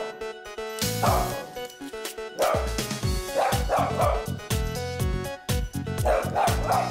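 Shih tzu barking at a toy car in several bursts of yips, over background music with a steady beat.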